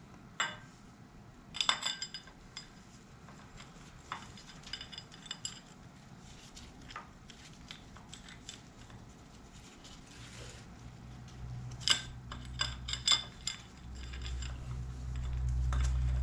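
Scattered light metallic clinks and knocks of steel timing-set parts and tools being handled at the front of an LQ4 V8 block during a camshaft install. A low rumble builds from about ten seconds in and is loudest near the end.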